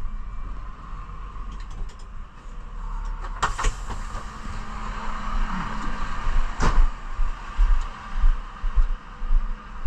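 Refuse truck's diesel engine running as the truck pulls in and then idles, with two sharp clunks about three and a half and six and a half seconds in as the cab door is opened and shut.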